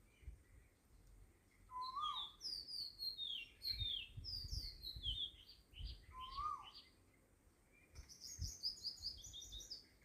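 Small birds chirping and singing: many quick falling chirps, a short rising-then-falling whistled note that comes back about every four seconds, and a fast trill near the end. A few soft low thumps sit under them.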